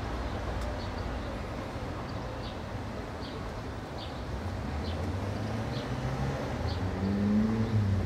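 Indian city street traffic ambience: a steady wash of mixed car, motorbike and auto-rickshaw engines and tyre noise. A nearby vehicle's engine grows louder near the end, and a faint high chirp repeats about once a second.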